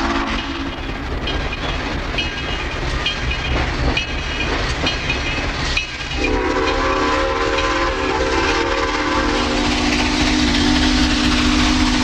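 Steam locomotive's bell ringing at a steady pace, then about six seconds in its steam whistle blows one long chime chord that holds to the end, over the low rumble of the engine.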